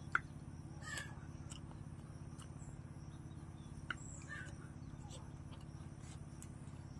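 Faint eating sounds: scattered soft lip smacks and chewing clicks while food is picked up by hand, over a steady low hum.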